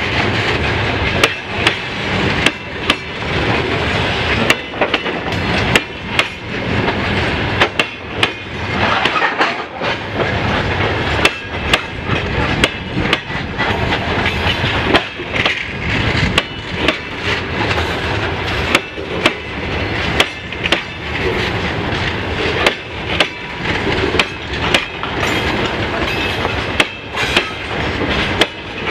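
Freight train wagons rolling past, a steady rumble with wheels clacking over the rail joints every second or so.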